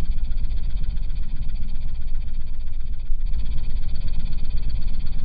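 Hi-Q 6.5-inch subwoofer playing loud, steady deep bass, strongest at the very low end with a rough, noisy upper edge.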